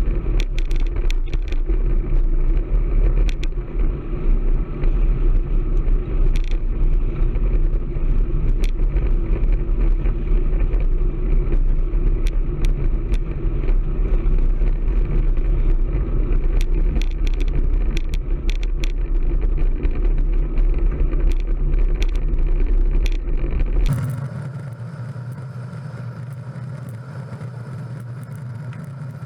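Heavy wind buffeting on the microphone while riding a road bike in strong wind, with scattered sharp clicks and rattles. About 24 seconds in it cuts off suddenly to a quieter, steady hum.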